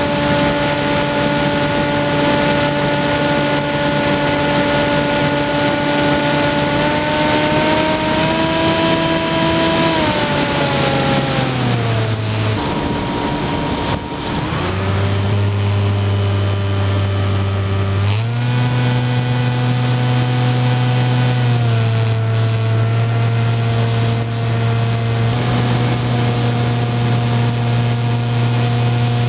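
Electric motor and propeller of a Skywalker FPV model plane heard through its onboard camera: a steady whine with overtones that drops sharply about ten to twelve seconds in as the throttle is pulled back. It climbs again around eighteen seconds, then steps down and back up with further throttle changes, over a rush of air noise and a thin steady high tone.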